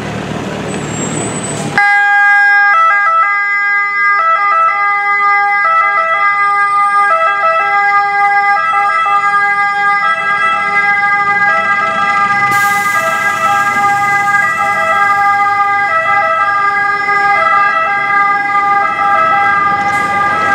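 Volkswagen T6 ambulance's two-tone siren switching on abruptly about two seconds in, then sounding continuously, alternating between its two pitches. Vehicle engine and traffic noise is heard before it starts.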